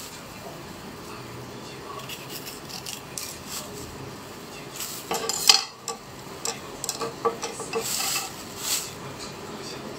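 Kitchen handling sounds: a knife and a potato clicking and scraping against the counter and a plastic bag, in scattered short clicks and scrapes, loudest about five seconds in.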